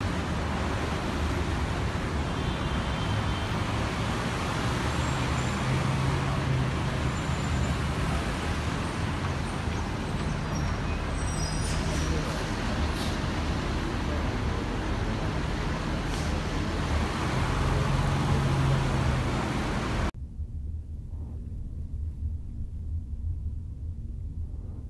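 Steady motor-vehicle noise with a low engine hum. About twenty seconds in it cuts off abruptly, leaving a quieter low rumble.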